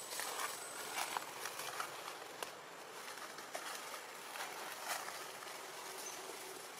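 Outdoor forest ambience: a steady hiss with scattered light clicks and rustles at irregular intervals.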